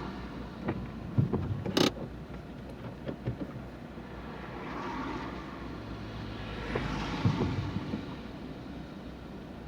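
Car interior while driving: a steady engine and road rumble, with a few knocks and clicks from the cabin, the sharpest about two seconds in. Twice the hiss of tyres on the wet road swells up and fades.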